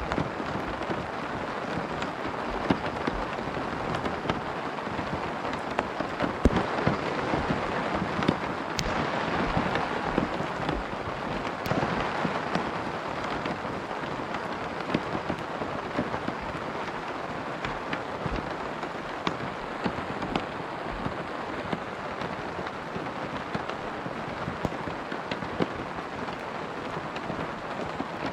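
Rain falling steadily on a tent, a dense patter with many sharp individual drop hits, a little heavier about a third of the way in.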